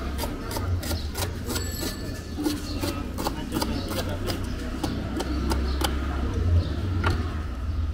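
Small knife chopping a red onion on a wooden cutting board: sharp taps of the blade striking the board, about two or three a second and unevenly spaced, over a low rumble.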